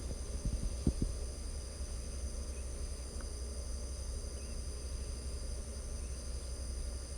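Crickets chirring steadily in several high pitches, over a constant low rumble, with a few soft low thumps about half a second to a second in.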